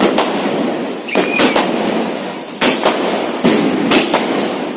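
Multi-shot aerial firework battery (a 240-shot Diwali 'air cracker') firing. Sharp bangs come about once a second, some in quick pairs, over continuous crackling, with a short high whistle about a second in.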